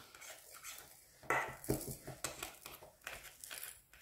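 Small hard plastic clicks and rattles as resin diamond-painting drills are tipped from a plastic tray into a spiked plastic diamond separator and nudged along with metal tweezers; scattered ticks, the loudest about a second in and a quick cluster near the end.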